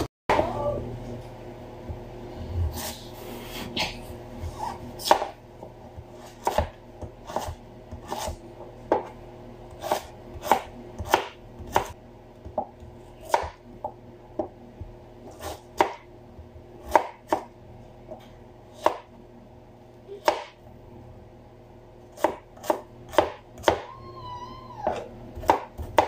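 Kitchen knife chopping on a cutting board: sharp, separate knocks of the blade striking the board at an uneven pace of roughly one to two a second, over a steady low hum.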